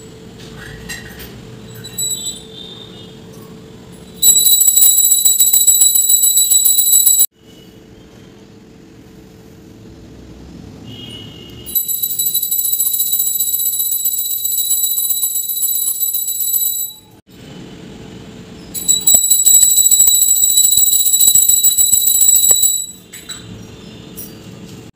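A brass puja hand bell rung rapidly in three spells of a few seconds each, a high steady ringing made up of fast strikes. It marks the worship after the vrat story is finished.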